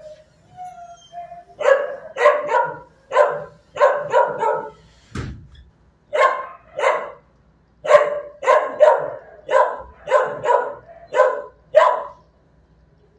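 Dog barking in a shelter kennel: about eighteen sharp barks in quick runs, with short pauses between the runs. There is a brief whine just after the start and a dull thump near the middle.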